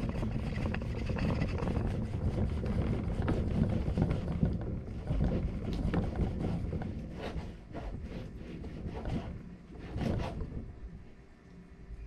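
A serrated knife sawing back and forth through a cooked steak on a wooden cutting board, the blade rasping and scraping in short strokes over a low steady rumble.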